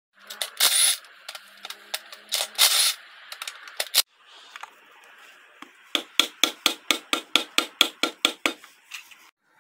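Tool work on a 6R80 transmission case: scraping and clattering, then from about six seconds in a ratchet wrench clicking evenly, about six clicks a second, for two to three seconds as a bolt is backed out.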